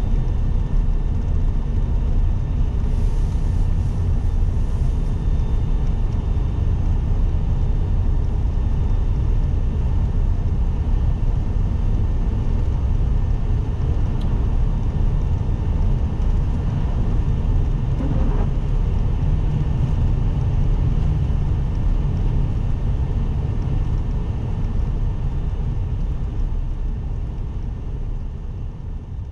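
Steady road noise heard inside a car's cabin on a wet road: a low rumble of tyres and engine with a light hiss from the wet surface. It fades away near the end.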